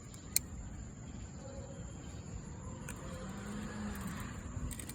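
Crickets chirping in a steady high trill, with one sharp click about half a second in.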